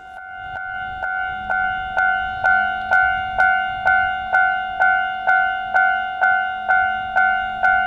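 Japanese railway level-crossing warning bell ringing in a steady rhythm, about two clear dings a second, coming in at the start and quickly reaching full loudness. It signals that a train is approaching the crossing.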